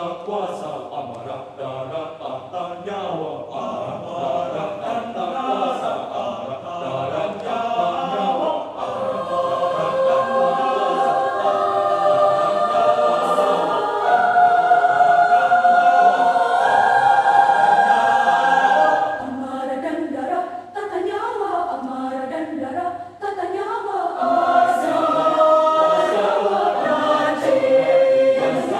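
A choir singing many-part held chords. The sound grows louder from about nine seconds in, eases off briefly twice in the second half, and swells again near the end.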